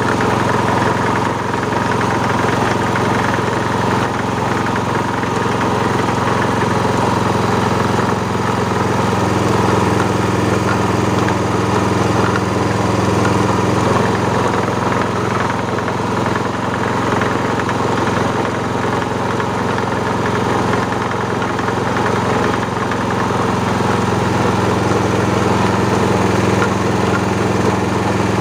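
Motor-driven mincing grinder running steadily with a constant hum while it grinds and extrudes a peanut mixture for sambal pecel.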